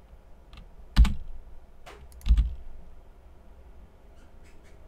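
A few separate computer keyboard key presses and mouse clicks, with two heavier knocks about a second in and just past two seconds in, and a quick run of lighter clicks near the end.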